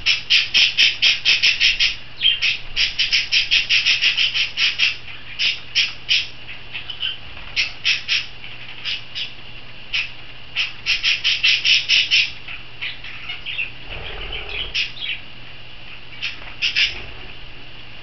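A small parrot calling in fast runs of short, shrill squawks, about six a second, in several bursts with pauses between.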